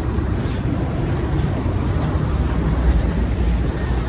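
Wind buffeting the microphone while walking outdoors: a steady low rumble.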